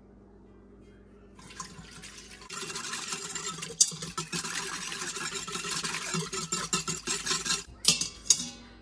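Chicken broth being poured into an Instant Pot: a steady pouring and splashing of liquid that starts about a second and a half in, gets heavier, and stops near the end, followed by a few sharp knocks.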